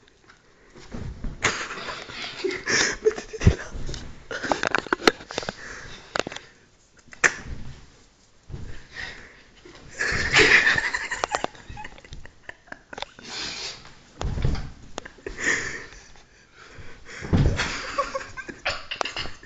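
Two people wrestling on a bed and floor: scuffling and rustling, with several heavy thumps of bodies landing, and bursts of laughter.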